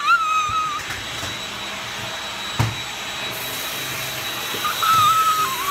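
Kitchen faucet running water into a stainless steel sink: a steady rushing hiss that gets brighter a little past halfway. One thump about two and a half seconds in, and a high wavering tone at the start and again near the end.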